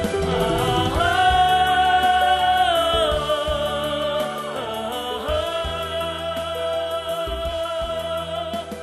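Background music from a slow song: a long wavering melody line held and gliding between notes over a steady bass accompaniment, growing a little quieter partway through.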